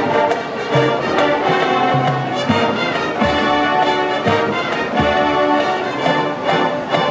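Marching band playing: sustained brass chords with low drum hits.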